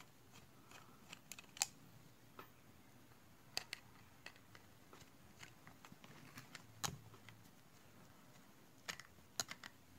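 Scattered faint clicks and light knocks of a small electric air compressor's metal body, gauge and hose fittings being handled and turned over.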